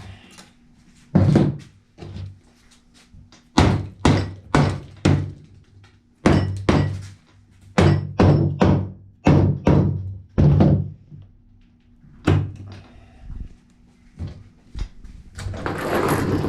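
A series of heavy thunks, mostly about two a second in runs with short pauses between, over a faint steady hum. A rushing, noisier sound swells near the end.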